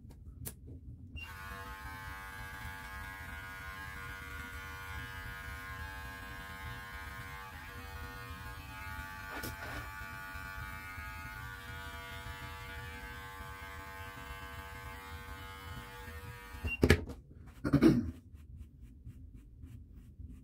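Electric beard clippers running at a steady buzzing hum as they cut through the beard. The hum starts about a second in and cuts off suddenly, and two short, loud thumps about a second apart follow near the end.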